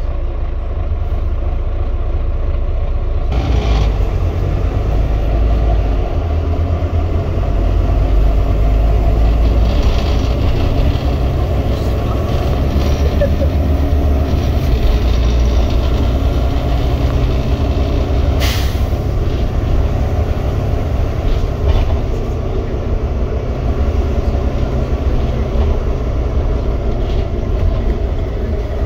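Volvo B9TL double-decker bus under way, heard from the upper deck: a steady low drone from its diesel engine mixed with road noise. A brief sharp noise comes about eighteen seconds in.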